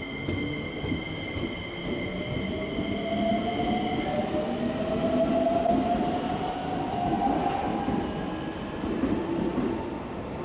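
Keikyu 1000-series electric train pulling away from the platform. Its traction motors give a whine that rises steadily in pitch as it accelerates, over the rumble of the wheels on the rails.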